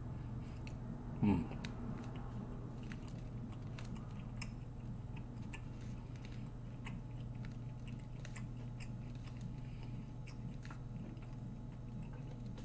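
A person biting off and chewing a piece of beef jerky, with soft irregular mouth clicks, over a steady low hum. A brief vocal sound comes about a second in.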